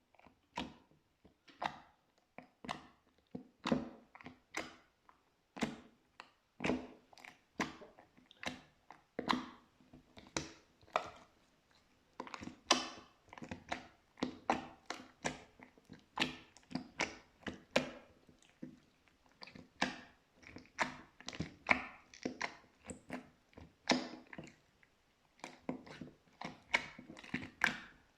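Slime being pressed and squished by hand, making short, sticky popping clicks at about one or two a second, in an uneven rhythm.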